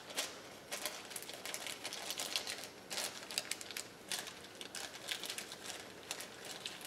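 Small plastic parts bags crinkling and rustling in nitrile-gloved hands while O-rings are picked out of them: a steady run of irregular quick crackles and ticks.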